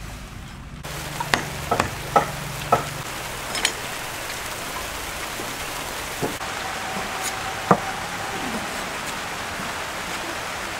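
Steady rain falling, with scattered sharper drop hits, most of them in the first few seconds.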